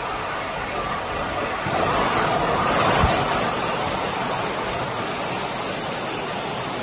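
Heavy typhoon rain pouring down as a steady hiss, swelling slightly about two to three seconds in.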